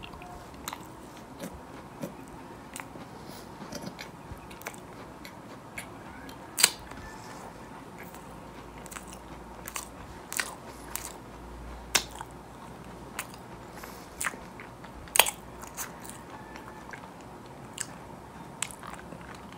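Close-miked eating sounds: a bite into a chocolate-coated mallow, then chewing with scattered sharp wet mouth clicks, the loudest about a third of the way in, past the middle, and about three-quarters through.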